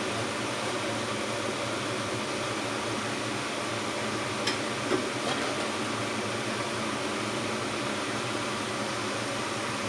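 Steady hiss of noise with no clear pitch, with two faint clicks about halfway through.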